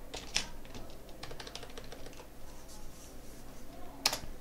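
Typing on a computer keyboard: irregular keystroke clicks, with one louder key strike near the end.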